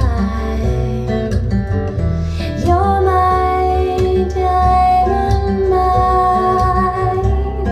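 A pop song played back through Audio Note AN-J/LX loudspeakers in a small room: a female voice holding long notes over guitar and a steady bass line.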